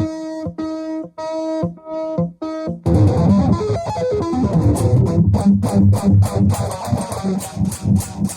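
Electric guitar shred practice. It opens with short repeated notes, about two a second, then about three seconds in breaks into a louder, dense run of fast-picked notes over heavy low notes.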